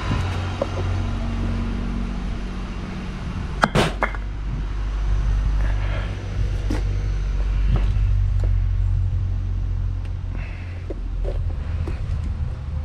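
Work on nailed wooden door trim: scattered clicks and one sharp knock about four seconds in, over a steady low hum.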